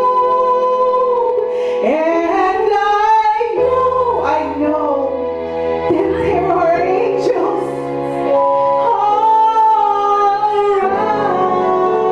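A woman singing through a handheld microphone over sustained electronic keyboard chords. Her voice glides between notes and holds some long notes.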